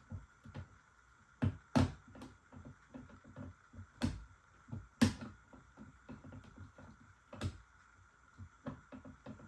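Irregular clicks and knocks of hard plastic parts being handled and pressed as a car side mirror housing is worked into place. The louder knocks come about a second and a half in, at about four and five seconds, and at about seven seconds, with lighter taps between.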